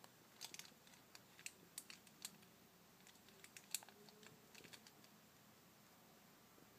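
A scatter of faint, irregular small clicks and ticks, about a dozen of them over four seconds, the sharpest one near the middle, against near silence.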